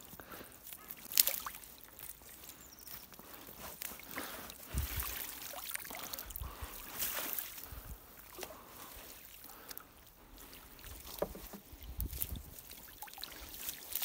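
Floating gill net being hauled by hand into a small boat: water dripping and sloshing, with scattered light clicks and knocks and a few dull thumps against the boat.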